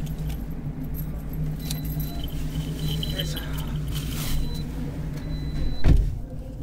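Steady low hum heard inside a car creeping forward on a ferry's car deck, with light rattling and clicks, and one heavy thump near the end.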